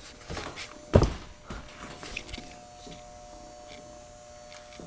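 A single heavy thump about a second in, with a few lighter knocks around it, over a faint steady hum.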